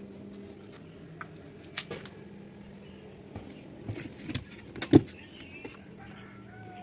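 Scattered sharp clicks and light metallic clinks, a few at a time, the loudest about five seconds in, over a faint steady hum.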